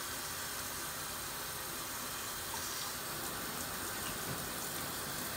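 Handheld shower sprayer running steadily, its water spray hissing onto a wet dog's coat in a bathtub.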